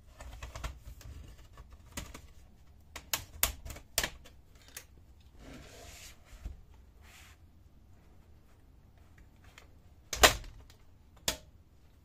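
Plastic retaining clips of an HP 250 G7 laptop's bottom case snapping loose as the case is pried open by hand: a series of sharp clicks. A short rubbing sound follows as the laptop is handled, then a louder knock and a smaller one near the end.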